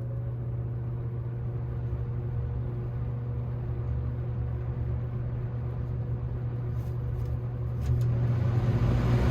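Vintage Galaxy 3714 box fan with a Marco plastic motor running steadily on low speed: a steady motor hum that grows louder near the end. The owner says the motor could stand to be oiled.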